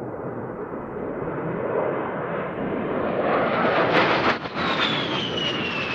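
A-10 Thunderbolt II's turbofan engines as the jet flies past: the rushing engine noise grows louder and brighter as it approaches, then a high whine falls in pitch as it goes by, from about halfway through.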